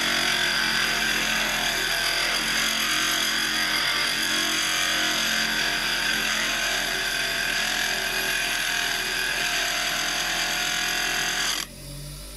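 Steel chisel blade held against a spinning Nu-Tool heavy-duty bench grinder wheel, a loud, steady grinding hiss as the bevel is ground. About a second before the end the chisel is lifted off and the grinding cuts off suddenly, leaving only the grinder motor running.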